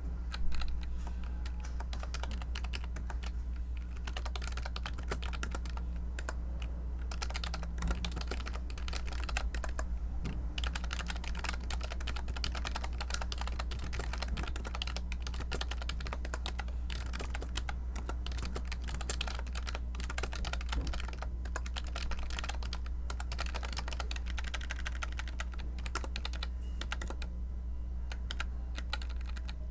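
Continuous typing on a computer keyboard: quick, irregular key clicks, with a louder knock about half a second in. A steady low hum runs underneath.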